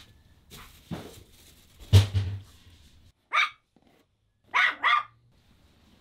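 A dog barking: one bark, then two quick barks close together, after a loud thump about two seconds in.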